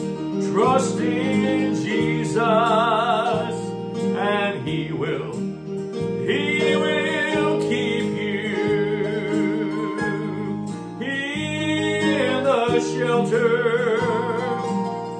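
A gospel song: a solo voice singing long held notes with vibrato over guitar accompaniment.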